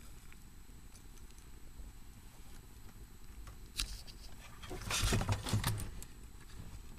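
Metal parts and tools being handled while a small two-stroke engine is taken apart: a sharp click just before the halfway mark, then about a second of clattering and rattling.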